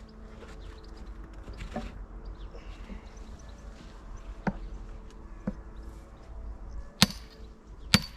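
Sledgehammer striking a splitting maul driven as a wedge into a big log round: two lighter blows, then two hard ringing metal-on-metal strikes about a second apart near the end.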